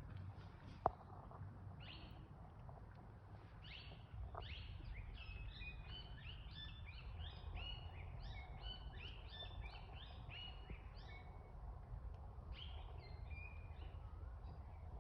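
Wild birds calling: many short, quick chirps overlapping in a busy chorus, thickest from about four to eleven seconds in, over a faint low rumble of outdoor background noise. A single sharp click sounds about a second in.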